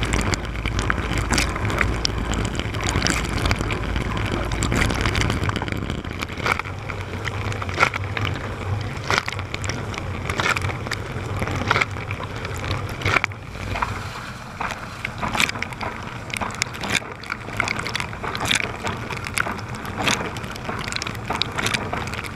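Water spraying and splashing inside a running GE dishwasher, heard from within the tub, with irregular sharp spatters of spray hitting close by. A low hum underneath drops away about five seconds in.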